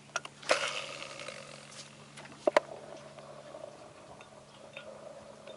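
Fishing reel and rod handling: a few light clicks and a short rush of noise, a sharp click about two and a half seconds in, then the steady, faintly ticking whir of a spinning reel being cranked to retrieve the lure.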